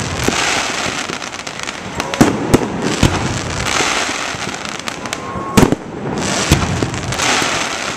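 Fireworks display: several sharp bangs of shells bursting, the loudest about five and a half seconds in, between stretches of hissing crackle from the bursts.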